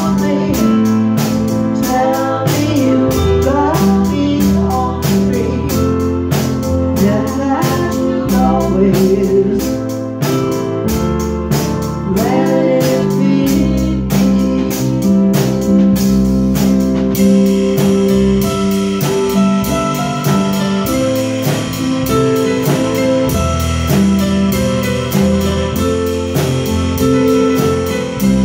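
A small live band of electric keyboards and a drum kit playing a slow song, with a singer over a steady beat kept on the cymbals. The singing thins out past the middle, and from about two-thirds of the way in the cymbals grow brighter and denser under the keyboard chords.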